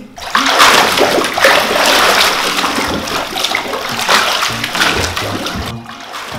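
A person thrashing about in a filled bathtub, water splashing heavily and continuously, with background music underneath. The splashing stops abruptly near the end.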